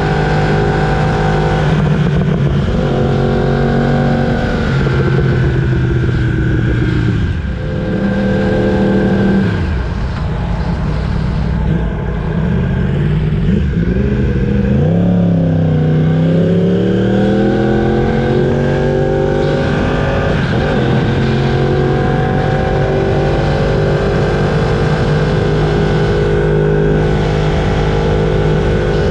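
Yamaha R1's crossplane inline-four running on the move. The engine pitch shifts in steps and drops in the first part, dips and climbs again about halfway, then holds steady.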